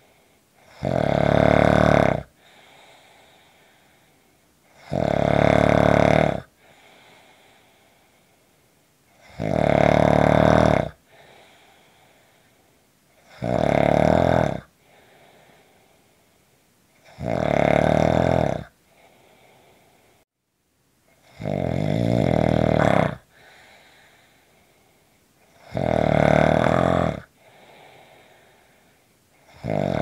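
A person snoring steadily: seven loud snores, each about a second and a half long, coming about every four seconds with quiet stretches between them.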